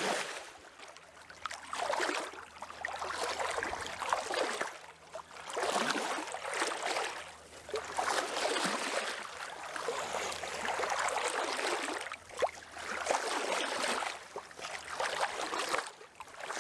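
Water sloshing and lapping in uneven swells a second or two apart, with a faint low steady hum underneath.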